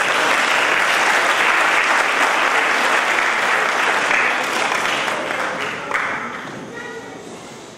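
Audience applauding steadily, then dying away over the last couple of seconds.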